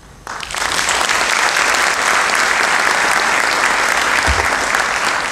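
Audience applauding in a theatre, breaking out suddenly a moment in and then going on steadily.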